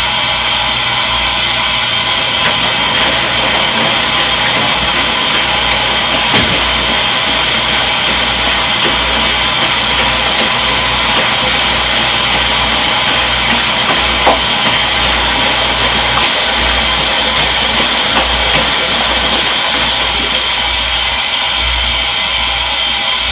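Front-load washing machine running: a steady whirring hiss over an uneven low rumble that swells and dips, with a few faint clicks.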